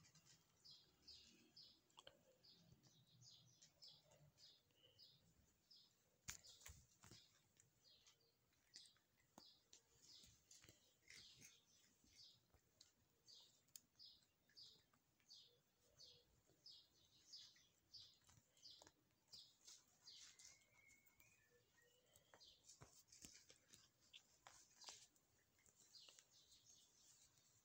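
Faint, high-pitched chirps repeating about two to three times a second, with a pause about two-thirds through, and scattered soft clicks.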